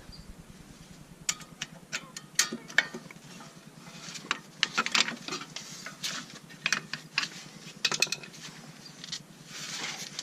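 Flathead screwdriver prying a brake caliper off the rotor: irregular metal clicks, knocks and scrapes, with a longer scrape near the end as the caliper works loose.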